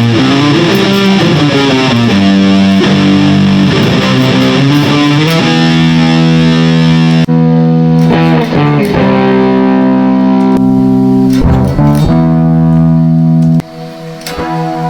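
Electric guitar played through a distortion effect: bent notes in the first few seconds, then sustained notes and chords ringing out. The playing drops off sharply near the end.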